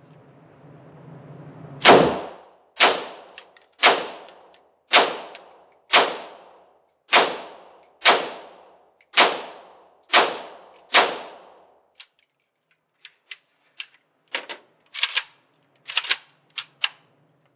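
Semi-automatic 7.62x39 AK rifle (Arsenal SLR-107fr) firing about ten single shots, roughly one a second, each crack ringing out briefly. Near the end come shorter, sharper cracks, several in quick pairs.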